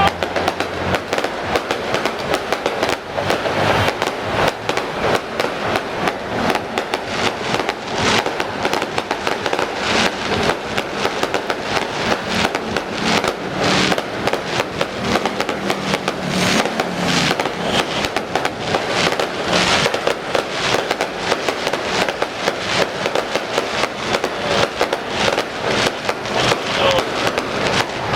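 Aerial fireworks display going off in a dense, continuous barrage: many sharp bangs a second mixed with crackling.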